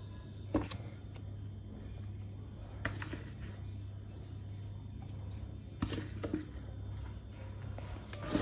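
A few soft, short taps and knocks as sliced potatoes are laid by hand into a glass baking dish of vegetables, over a steady low hum.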